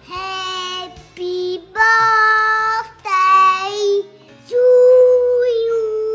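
A young boy singing in long, drawn-out held notes, several short phrases with brief pauses between them.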